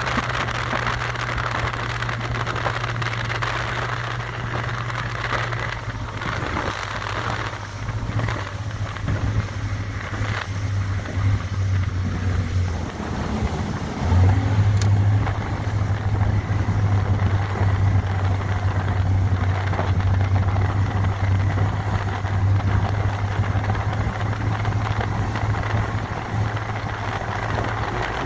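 Speedboat engine running at speed with a steady low drone, over a rush of wind and water past the hull. The engine gets louder about halfway through.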